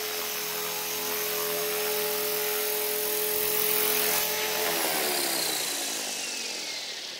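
Blade 450 electric RC helicopter's motor and rotors whining at a steady pitch as it hovers low and sets down on grass. About two-thirds of the way through the whine falls steadily in pitch and fades as the rotor head spools down after landing.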